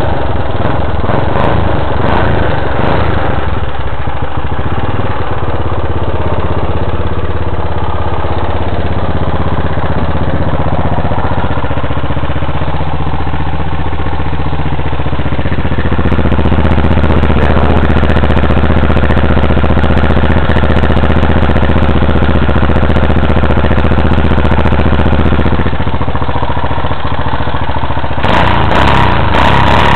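1981 Honda XL185's single-cylinder four-stroke engine idling; the engine is burning oil and is due for new piston rings. About halfway through the idle rises a little and holds steady, then drops back a few seconds before the end.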